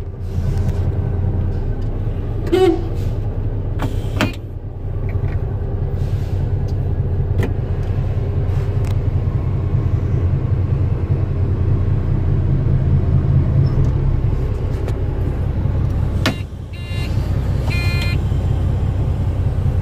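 Old Freightliner truck's diesel engine idling steadily, heard from inside the cab, with a few knocks and clicks and a brief high squeak near the end.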